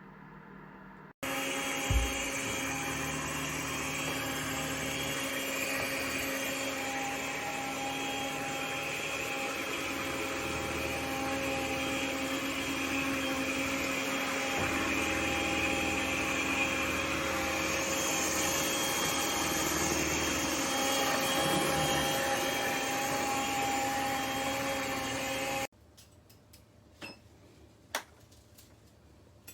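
The ECOVACS DEEBOT T20 OMNI's vacuum motor running at a steady whine. It starts suddenly about a second in, with a brief knock just after, and cuts off suddenly near the end.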